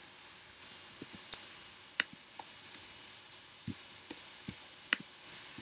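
Typing on a computer keyboard: slow, irregular key clicks, roughly three a second, with short pauses between.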